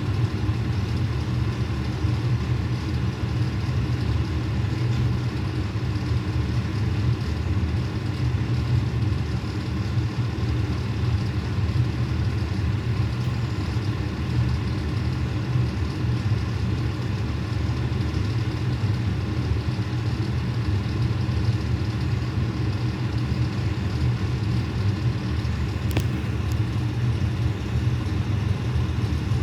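Fire truck's diesel engine idling steadily with a constant low rumble. A single short click about 26 seconds in.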